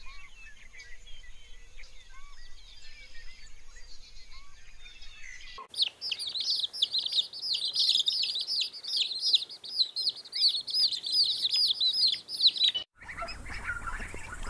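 Birds chirping: faint scattered calls at first, then after an abrupt cut about six seconds in, a loud, dense run of rapid high chirps. That run stops abruptly about 13 seconds in and gives way to lower calls.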